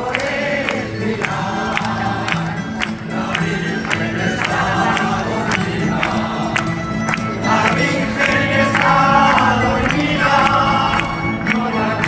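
Live Spanish folk music: guitars and other plucked strings strum chords in a steady rhythm while a group of voices sings.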